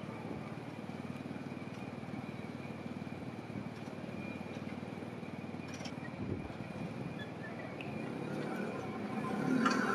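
Hankai Tramway Mo161-type streetcar, built in 1928, rolling slowly along street track: a steady rumble of wheels and running gear with a knock about six seconds in. The sound grows louder near the end, with a pitched hum coming in, as the car draws closer.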